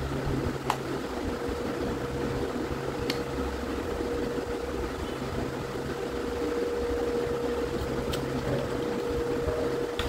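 Steady low mechanical hum with a thin steady whine, broken by a few light clicks of a fork against a plastic bowl.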